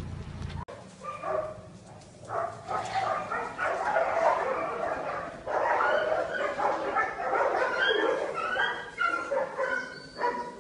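Dog barks, yips and whimpers in quick succession, many short calls running close together. Under a second in, a low steady hum cuts off abruptly.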